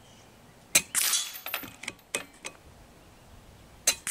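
Kalibrgun Cricket 2 Tactical .22 PCP air rifle fired twice, about three seconds apart: each shot is a sharp crack followed at once by a louder burst that fades over about half a second. A few light clicks come between the two shots.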